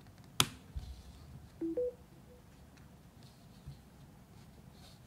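A sharp click of a charging cable's connector being plugged in, then about a second later a short two-note electronic beep rising in pitch, the device's signal that charging has begun.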